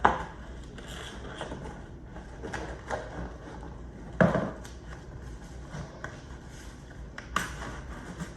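Cardboard boxes and packaging being handled: scattered knocks, taps and rustles, with a louder thump at the start and another about four seconds in.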